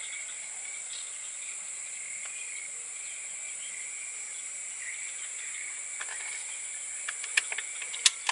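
Steady, high-pitched drone of an insect chorus, with a few sharp clicks near the end.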